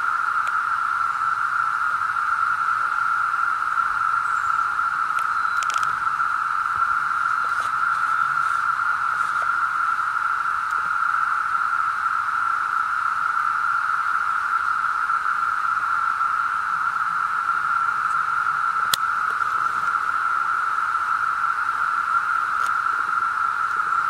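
Brood X periodical cicadas in a dense, deafening chorus: a steady, unbroken drone held on one pitch, with a couple of faint clicks.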